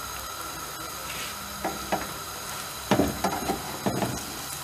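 Yufka gözleme frying over high heat in a greased nonstick pan, sizzling steadily. A wooden spatula scrapes and knocks against the pan a few times, mostly in the second half, as the gözleme is shifted around the pan.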